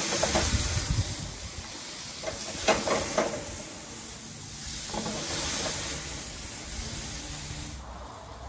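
Ground meat sizzling and hissing in a very hot skillet as the pan flames up over the gas-grill burner. A few quick clatters of a utensil against the pan come about three seconds in, and the hiss cuts off sharply near the end.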